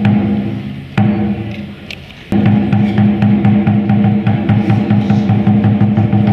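Traditional Vietnamese water puppet theatre music: a loud drum strike, then from about two seconds in a fast, even drum roll, over a held low note.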